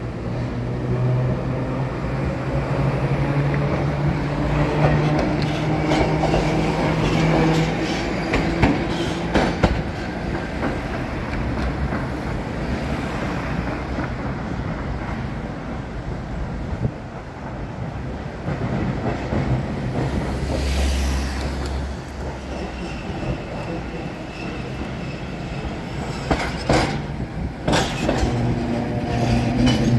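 Okayama Electric Tramway streetcars running on street track: a streetcar's steady motor hum and wheels on the rails, mixed with passing road traffic. Near the end a streetcar passes close, its wheels clicking sharply over the rail joints.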